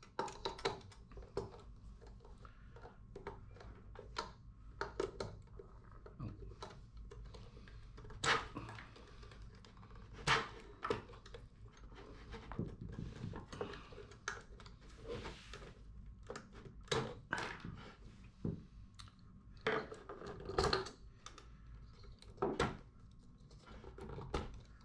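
Hands pulling push-on wire terminals off an electrical contactor and working it loose with a screwdriver on a metal control panel: a scatter of irregular clicks, knocks and rattles of terminals, wires and tool.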